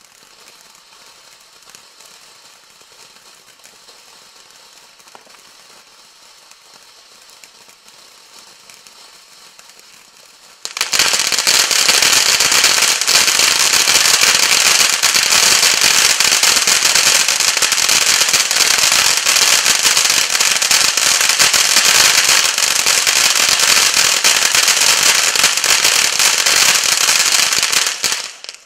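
Hot Fireworks 'Magic Castle' consumer fountain burning. A faint hiss of spraying sparks gives way, about eleven seconds in, to a loud, dense crackling that holds steady and cuts off suddenly near the end.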